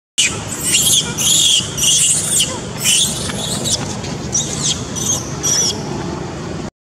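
A young macaque crying out in a rapid run of shrill, high-pitched squeals, loudest in the first three seconds and fainter near the end.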